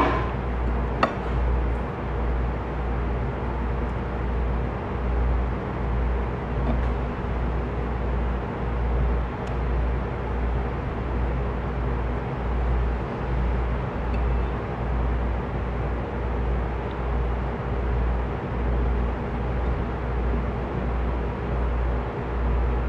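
Steady low rumble with a constant mechanical hum, the background noise of the room, swelling and dipping about once a second, with one faint click about a second in.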